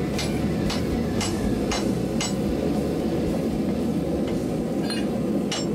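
Hand hammer striking a glowing-hot pattern-welded Damascus billet on a steel anvil: about two blows a second for the first two seconds, a pause, then the blows start again near the end, over a steady low rumble.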